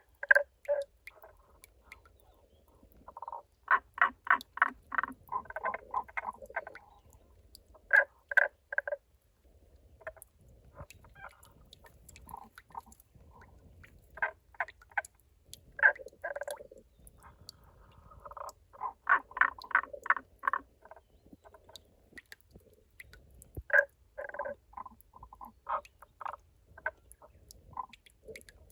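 Frogs calling from inside a rock-crevice spring: bout after bout of rolling "koro-koro" croaks, each a fast run of pulses, sometimes two callers overlapping.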